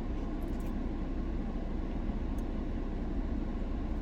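Steady low rumble and hiss inside a parked car with its air conditioning running.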